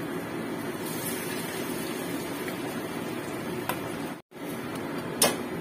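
Battered tempeh frying in hot oil in a pan: a steady sizzle with small crackles. The sound cuts out for an instant about four seconds in, and a sharp click comes about a second later.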